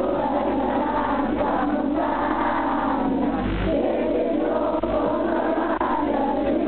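A group of people singing together, holding long sustained notes as one chorus.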